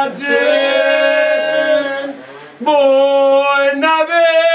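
A man singing a traditional Sicilian devotional song to the Madonna, unaccompanied, in long held notes, with a short pause about two seconds in.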